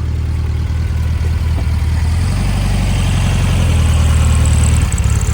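Car engine running as the car drives off, getting louder over a few seconds, then dropping away briefly near the end.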